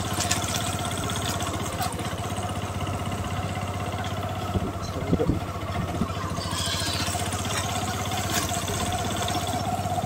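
Motorcycle engine running at a steady speed as the bike is ridden along a village road, an even hum that neither revs nor dies away.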